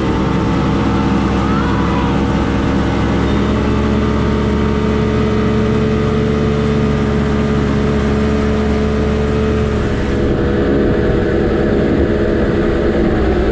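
1999 Evinrude Ficht 150 two-stroke outboard motor running steadily, with a change in its higher noise about ten seconds in.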